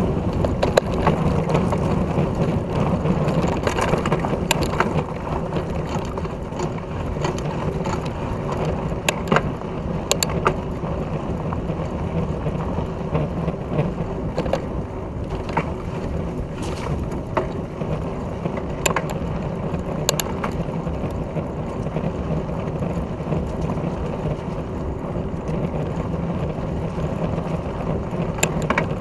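Wind rushing over a bike-mounted action camera and a fat bike's tyres rolling over a dirt trail, a steady rumble with scattered sharp clicks and rattles from the bike over bumps.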